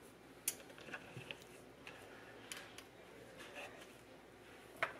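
Faint, scattered light clicks and taps of diced bell pepper being gathered up by hand on a wooden cutting board, with a sharper click about half a second in and another near the end.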